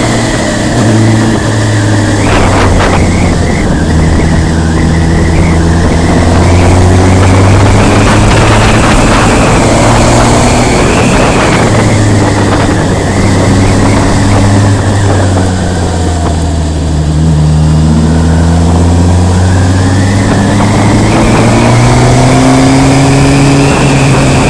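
Motorcycle engine running while riding. Its note rises and falls several times with the throttle, dipping lowest about two-thirds of the way through and climbing again near the end, over steady rushing wind noise.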